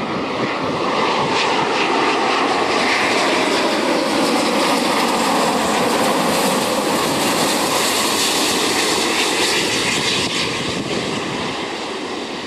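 Airbus A350-941's Rolls-Royce Trent XWB turbofans on final approach with landing gear down, flying low past: a loud jet rush with tones that slide downward in pitch as it passes. The noise eases off near the end.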